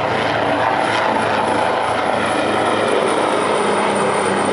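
Italian Air Force search-and-rescue helicopter flying past low overhead, its rotor and turbine engines making a steady, unbroken noise.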